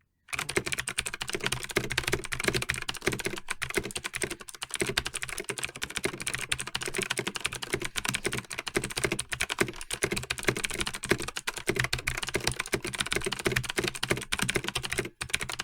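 Fast, continuous typing on a computer keyboard: a dense, unbroken run of key clicks at full typing-test speed, cutting off abruptly near the end.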